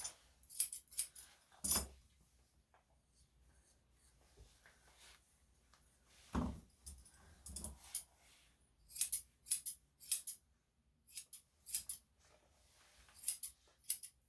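Grooming scissors snipping through a Yorkshire Terrier's coat in quick runs of short, crisp cuts, with pauses between runs. Two duller knocks come in, one near the start and one about halfway.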